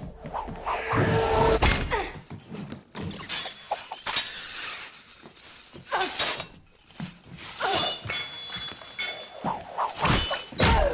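Film fight-scene sound effects from a meteor-hammer fight: a string of crashes and heavy impacts with things shattering, loudest about a second in and near the end.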